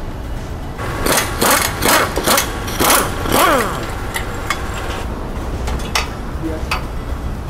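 Power tool working on a car: six or so short, loud bursts about one to four seconds in, the last ending in a falling whine, over a steady low hum, with a few light clicks later.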